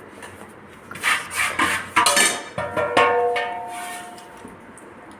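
Metal kitchen utensils clattering and knocking against each other several times, the last knock about three seconds in leaving a ringing tone that fades over a second or so.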